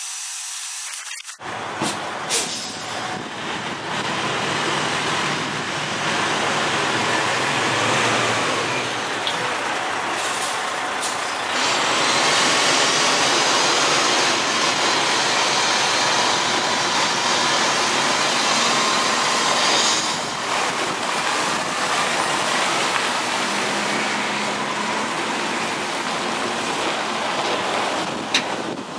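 Semi-truck tractor's diesel engine running as it manoeuvres and backs a trailer into a slot, growing louder about twelve seconds in. A short sharp sound stands out near the end. The sound drops out for about a second at the very start.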